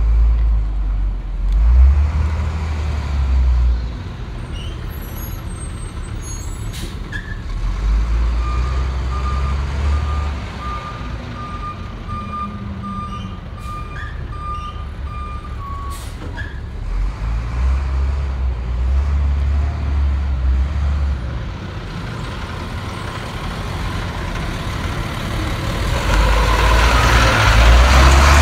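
Leach Alpha rear-load garbage truck at work: its engine rumbles and swells in repeated surges. Through the middle a backup alarm beeps steadily for several seconds, with a couple of sharp clanks, and a broad hiss builds near the end.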